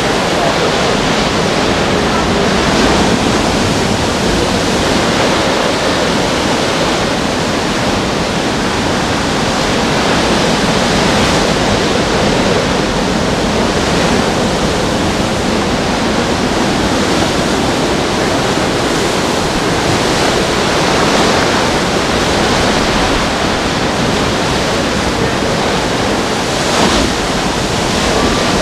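Hurricane wind and rain: a loud, steady rushing noise that swells slightly with the gusts.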